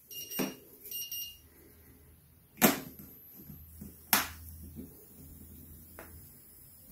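HTRC P20 smart battery charger beeping, short high electronic beeps repeating while its clamps are still unconnected, two of them in the first second or so. Then two sharp clicks about a second and a half apart, and a lighter one later, as the alligator clamps are clipped onto the LiFePO4 battery's terminals, over a faint low hum.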